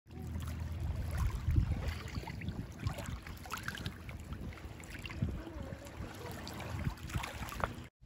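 Shallow seawater lapping and swirling over a sandy, pebbly shore, with small splashes and a continuous low rumble.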